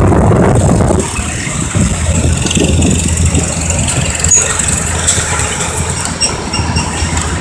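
Farm tractor engines running steadily on the road, a low steady hum heard from the towed wagon. Wind buffets the microphone loudly for about the first second.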